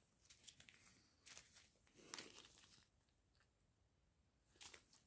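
Near silence, with a few faint, brief crinkles of small plastic zip bags of round diamond-painting drills being handled.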